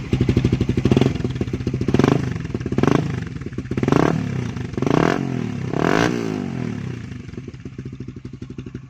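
Motorcycle engine breathing through a RedLeo aftermarket exhaust canister, revved with quick throttle blips about six times, each one dropping back, then settling to a steady idle after about seven seconds.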